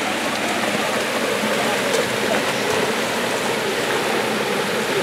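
Steady rushing and splashing of water pouring out of the base of a pumped aeration column into a trout raceway. The water is lifted and dropped through the column to put oxygen back into it.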